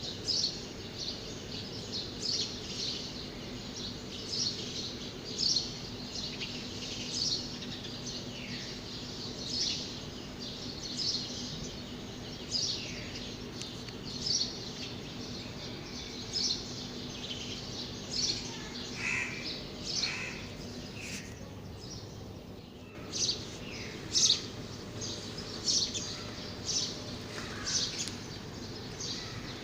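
Small birds chirping in short, repeated calls about once a second, some sliding downward, over a steady background hum.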